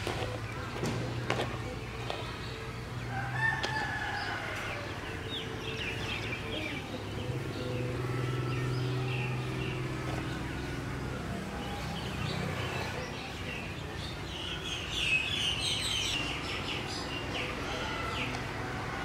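Chickens calling: a rooster crowing and hens clucking, several times, loudest about 3.5 seconds in and again near the end, over a steady low hum.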